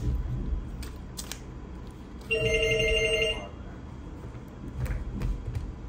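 Handy Counter portable note counting machine giving a single electronic beep about a second long, a little past two seconds in. Around it, faint rustles and taps of a banknote stack being handled and set into the machine.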